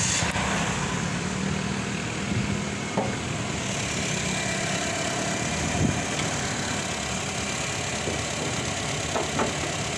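Honda Mobilio's engine idling steadily, heard with the bonnet being opened, with a few light knocks from the bonnet and its prop about three, six and nine seconds in.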